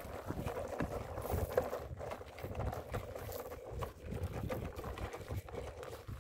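Plastic toy dump truck towed by a string over coarse gravel and coral pebbles: its wheels rolling and crunching, with a steady run of irregular small clicks and knocks.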